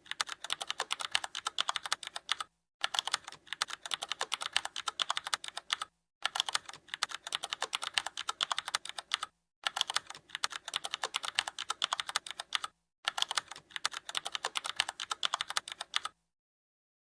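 Rapid typing clicks like a computer keyboard, in five runs of about three seconds each with brief dead-silent gaps between them, stopping about sixteen seconds in.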